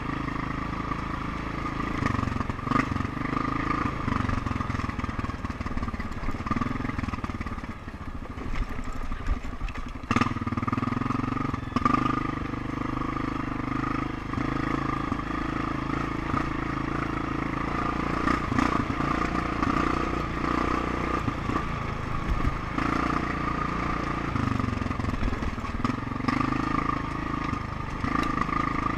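ATV engine running as it is ridden, holding a steady pitch for long stretches. About eight seconds in the throttle eases off and the engine picks up again about two seconds later, with a few knocks scattered through.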